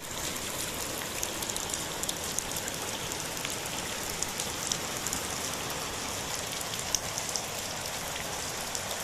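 Steady rain falling, with many individual drops ticking sharply against surfaces throughout.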